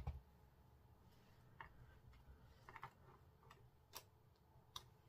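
Near silence broken by a few light taps and clicks of a clear stamp on an acrylic block being set down on an ink pad and pressed onto card.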